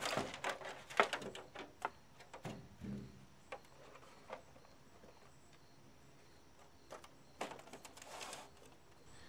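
Plastic back cover of a CRT television being pulled off and handled, knocking and clattering: a quick run of hollow knocks in the first three seconds, then a few scattered clicks and a short rustle near the end.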